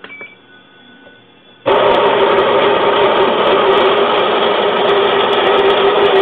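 A small electric kitchen appliance switches on suddenly about one and a half seconds in and runs with a loud, steady whir and a constant hum.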